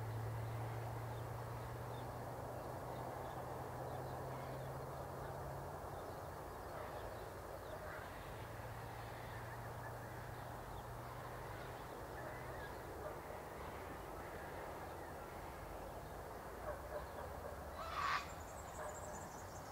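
Steady hiss of light rain on a misty hillside. A low hum drones through the first few seconds and again midway, and a short sharp call stands out near the end.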